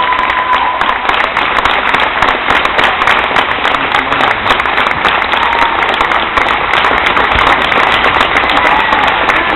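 A crowd applauding: many hands clapping in a steady, dense patter.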